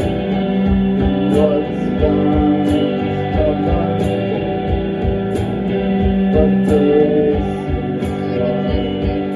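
A live band playing electric guitars and bass over a steady beat, with singing.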